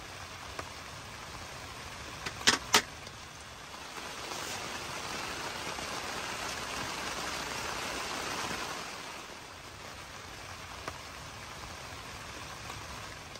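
Steady rain falling, a constant hiss. Two sharp clicks come close together about two and a half seconds in. In the middle, a rushing swell rises and fades over about five seconds.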